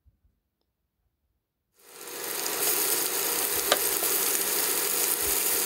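Near silence, then about two seconds in raw steak strips start sizzling steadily in hot olive oil in a stainless steel pan, with one sharp click midway through.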